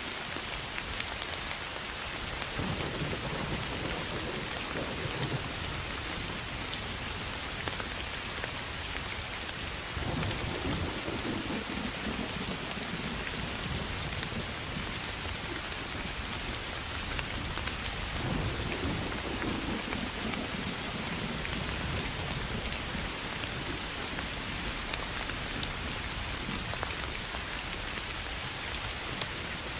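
Steady soft rain falling on grass and fields, with three low rolls of thunder spread through it, each lasting a few seconds.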